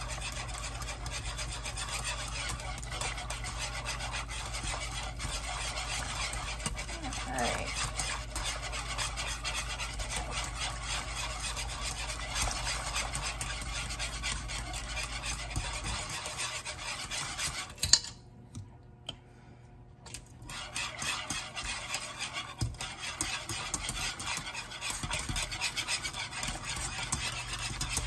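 Wire whisk scraping quickly and steadily against the bottom and sides of a metal pot as it stirs a thin, milky sauce. About two-thirds of the way through there is a sharp tap, then a pause of a couple of seconds before the whisking resumes.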